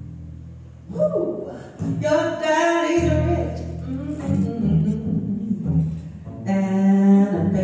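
A woman singing with double bass accompaniment, performed live as a vocal and bass duo. The bass plays long low notes alone at first, and the voice comes in about a second in and carries on over it.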